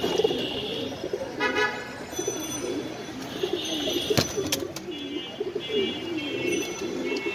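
Domestic pigeons cooing throughout in a wavering low run, with a short honk-like tone about a second and a half in and a single click near the middle.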